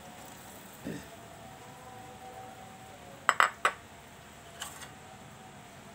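Metal clinking on a stainless steel frying pan as boiled intestines are added to yellow spiced broth: a soft thump about a second in, then three quick sharp clinks a little past halfway and a fainter one a second later.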